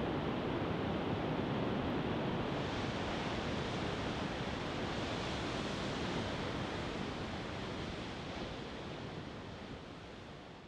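Steady rush of ocean surf, fading out over the last few seconds.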